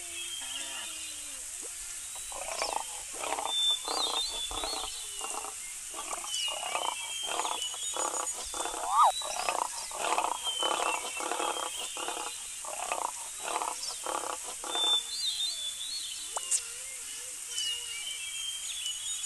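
Lion sound effect: a long run of short, evenly spaced grunting calls, about two or three a second, which stops a little before the end. Behind it runs a steady nature backdrop with recurring bird chirps.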